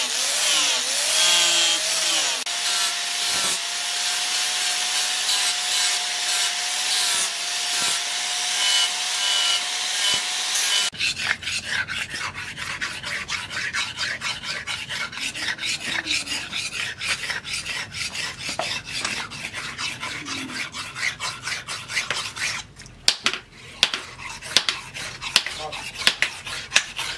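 Angle grinder with a sanding disc grinding the flat of a steel cleaver blade: a steady high whine over a gritty hiss. About eleven seconds in it gives way to the cleaver's edge being rubbed back and forth on a sharpening stone, in quick rhythmic scraping strokes with a few sharper clicks near the end.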